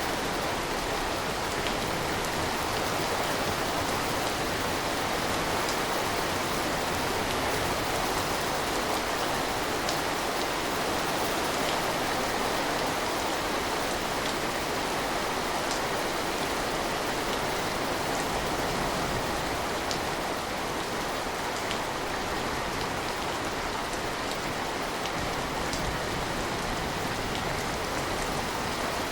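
Steady rain falling, a dense even patter with scattered individual drop ticks.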